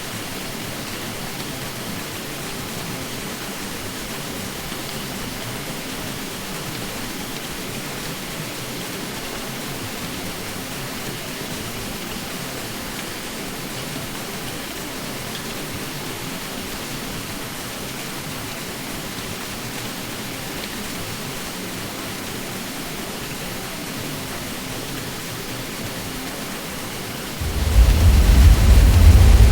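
Ceiling fan running with a steady, even whooshing hum. Near the end it abruptly gets louder and a deep low hum comes in underneath.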